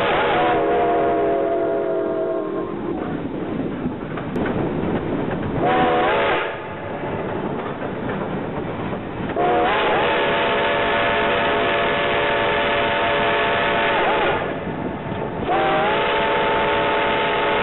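Shay steam locomotive's chime whistle blowing repeatedly: a blast that fades out a couple of seconds in, a short toot, then two long blasts, each sliding briefly up in pitch as it opens. Under it runs the steady noise of the moving train.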